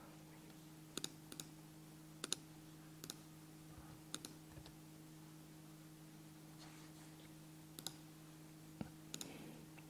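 Faint, scattered clicks of a computer mouse and keyboard, about a dozen, irregularly spaced, over a low steady hum.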